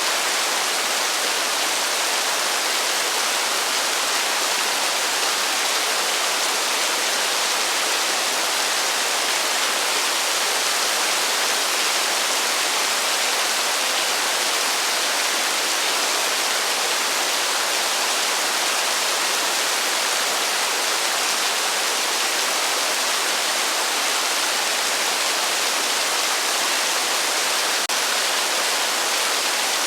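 Heavy rain falling as a steady, even hiss, with no thunder and no single drops standing out.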